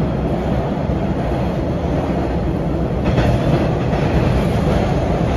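MBTA Red Line subway car running at speed, heard from inside the car: a steady rumble of wheels on the rails, a little louder from about three seconds in.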